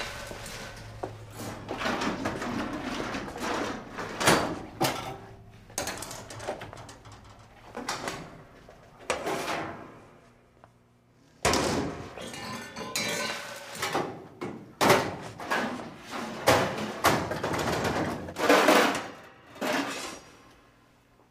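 Kitchen clatter: stainless-steel cabinet doors and drawers opened and shut, and metal pans and utensils knocked about and set down. It comes as a string of separate knocks and scrapes, with a short lull about halfway before a sudden loud bang.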